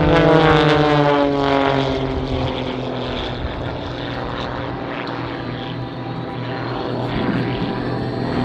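Pitts aerobatic biplane's piston engine and propeller running hard in a vertical climb. The pitch falls over the first couple of seconds as the aircraft pulls away upward, then holds steady and grows slightly louder near the end.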